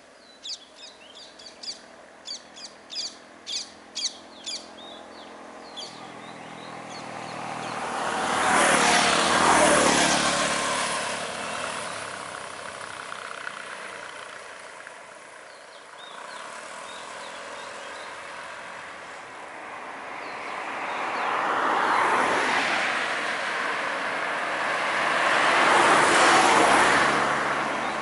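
Cars passing on a road: their engine and tyre noise swells and fades about ten seconds in, and twice more near the end, over a low steady engine hum. In the first five seconds a bird calls in a quick series of short notes that get louder.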